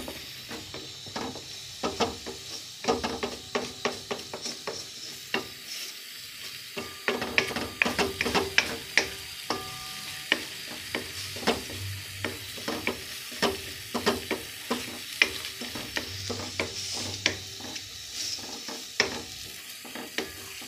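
Wooden spatula stirring and scraping scrambled eggs in a steel wok, with many irregular knocks and scrapes of the spatula against the metal. The eggs sizzle steadily underneath as they fry over the gas flame.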